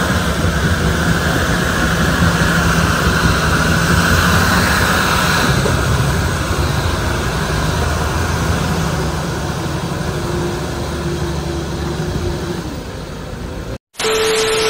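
A John Deere farm tractor's diesel engine runs steadily under load as it tows a loaded trailer through deep floodwater, with water rushing and splashing around the wheels. Near the end the sound cuts out briefly and gives way to a short burst of TV-static hiss with a steady beep tone.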